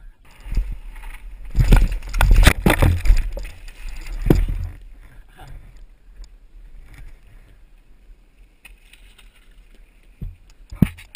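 Knocks, scrapes and rustling from a rider getting back to a downhill mountain bike lying on a dirt trail, picked up close by a helmet-mounted camera over a low rumble. The loudest knocks come in a cluster in the first few seconds, then it goes quieter, with two sharp knocks near the end as the bike sets off.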